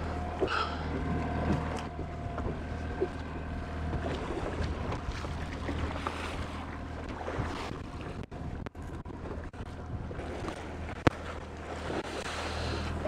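Fishing boat on choppy water: waves splashing against the hull and wind on the microphone over a steady low motor hum, with a single sharp knock about eleven seconds in.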